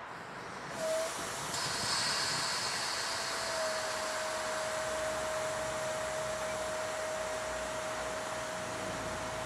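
Railway locomotive noise: a steady hissing rush that swells about a second in, with a single steady whine coming in a few seconds later and holding.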